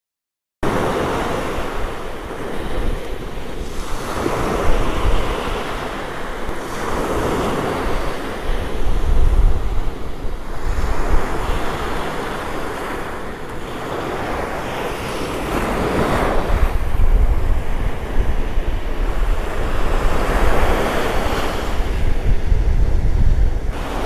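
Rough sea surf breaking and washing up on a sandy beach, the roar swelling every few seconds as each wave comes in; the sea is choppy from a strong wind. Wind buffets the microphone with a low rumble.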